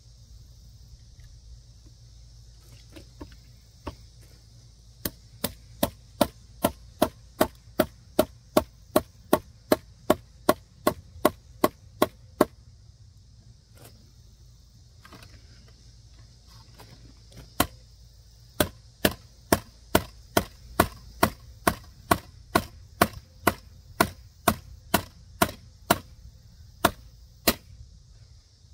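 Repeated hammering blows on wood, evenly spaced at about two a second. There are two long runs of some seventeen and twenty strikes with a pause between them. The blows belong to a nailing test of a Microtech Combat Troodon out-the-front automatic knife.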